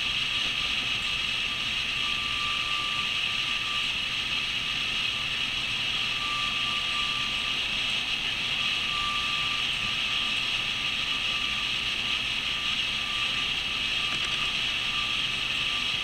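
Steady hiss with a thin high whine that comes and goes several times.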